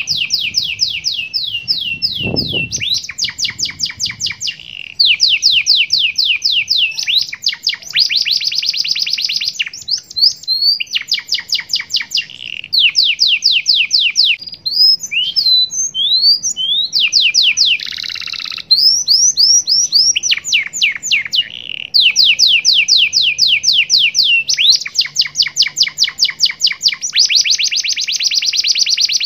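Domestic canary singing a long, varied song of rapid trills and rolls of repeated sweeping notes, with short pauses between phrases; this is a master song laced with gelatik batu (great tit) phrases. A single low thump comes about two and a half seconds in.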